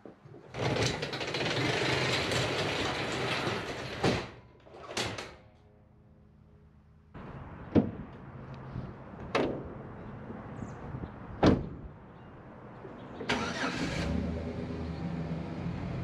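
An overhead garage door is pulled down, rolling shut for a few seconds and landing with a thud. Then a few sharp knocks and thumps, and near the end a pickup truck's engine cranks, catches and settles into a steady idle.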